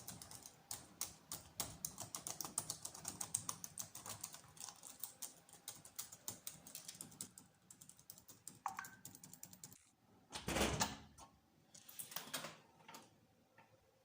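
Quick, irregular clicking like typing on a keyboard for about nine seconds. It is followed by a louder dull thump-like noise about ten and a half seconds in and another brief noisy sound near twelve seconds.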